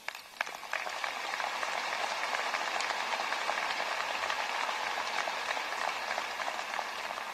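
Audience applauding: a dense patter of many hands clapping that builds quickly and begins to die away near the end.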